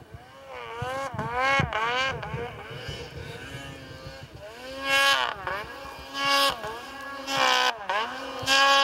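An engine revved again and again in short throttle blips. Its pitch climbs and drops with each blip, a few quick revs in the first two seconds, then louder revs about a second apart in the second half.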